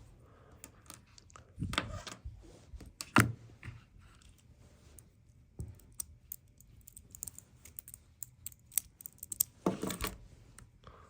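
Irregular small clicks and taps from handling the Apple Watch Ultra and its band parts, with a few louder knocks about two and three seconds in and again near the end.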